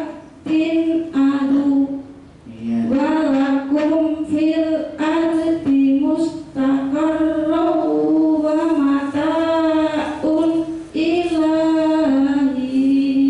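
A woman chanting Quranic verses in Arabic into a handheld microphone, a melodic recitation of long held notes broken by short pauses between phrases.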